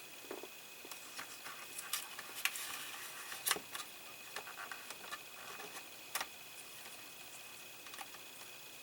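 Scattered light clicks and rustles of hands handling small model parts, wiring and a plastic cable tie, busiest about two to four seconds in. A faint steady high whine runs underneath.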